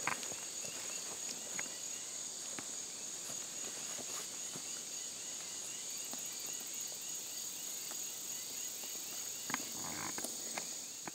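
Insects droning steadily at a high pitch, with a run of short chirps repeating a few times a second and a few faint clicks.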